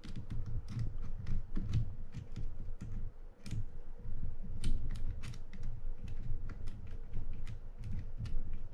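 Irregular light clicks and taps of a small screwdriver and metal reel parts as a screw is driven into a Penn International 20 fishing reel's side plate during reassembly, over a low rumble of handling.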